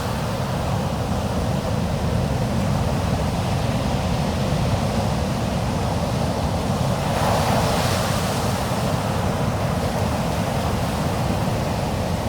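A steady rushing noise that swells briefly about seven seconds in, then settles back.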